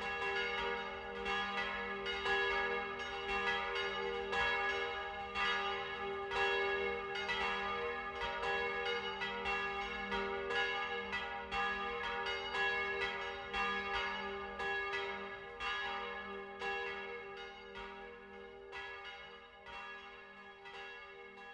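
Church bells pealing, many rapid strokes ringing on over one another, slowly fading toward the end.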